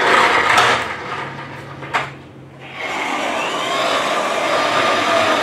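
A toy police car's small electric motor whirring as its plastic wheels run along the floor. The sound fades about a second in, a sharp click comes near two seconds, and it runs steadily again from about three seconds on.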